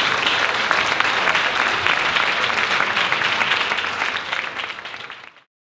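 Audience applauding, many hands clapping at once; the applause fades over the last second or so and cuts off just before the end.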